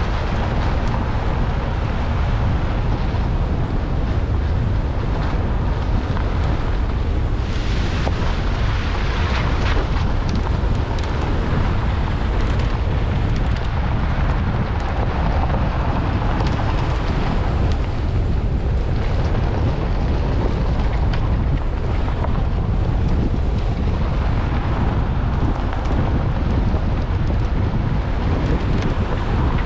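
Steady wind rumble on an outside-mounted camera microphone on a 4x4 driving a gravel track, over the vehicle's engine and tyre noise. Brief crackles, likely from gravel under the tyres, come and go throughout.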